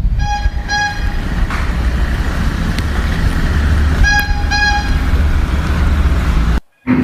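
A karung guni (rag-and-bone) man's horn tooting twice in quick succession, then twice again about four seconds later, over a steady street rumble. The recording cuts off abruptly near the end.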